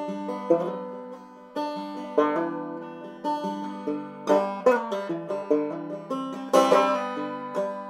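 Background music: plucked banjo with guitar in a country/bluegrass style.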